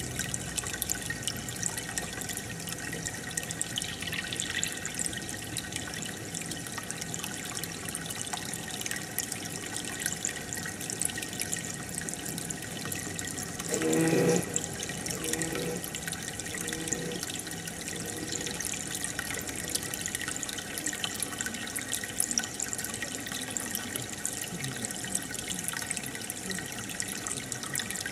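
Aquarium aeration: a steady stream of air bubbles rising and breaking at the water surface, a continuous bubbling and trickling. About halfway through comes one short, louder sound with a faint pitch to it.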